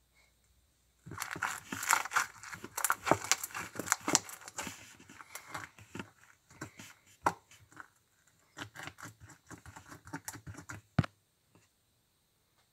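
Crunchy slime being worked by hand, giving dense crackling and popping starting about a second in, which thins out, then a second run of crackles and a single sharp pop near the end.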